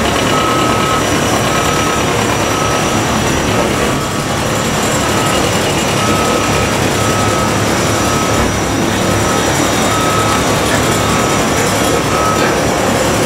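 Steady din of heavy construction machinery with a reversing alarm beeping at a regular pace, about three beeps every two seconds, pausing briefly about halfway through; a thin steady high whine runs underneath.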